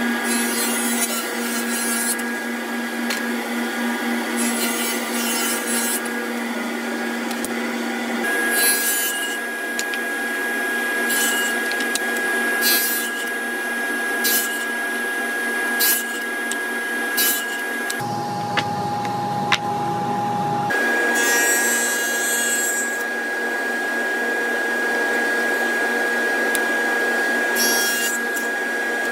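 Table saw running with a steady whine while cutting plywood, with several short, sharp bursts of noise in the middle as the blade goes through the wood. The machine sound changes abruptly twice, a little past halfway.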